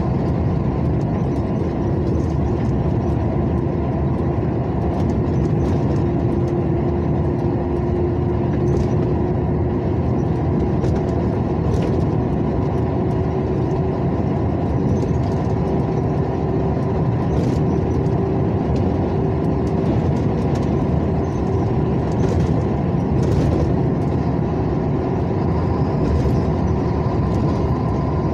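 Steady engine and tyre noise of a vehicle driving along a highway, with a constant hum.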